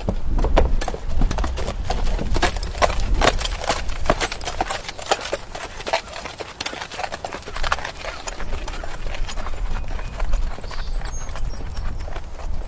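Horse walking, its hooves clip-clopping in a quick irregular run of knocks over a steady low rumble.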